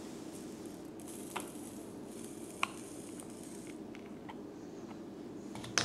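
Water sloshing quietly in a plastic drink bottle as it is shaken to mix in pre-workout powder, with a few light clicks.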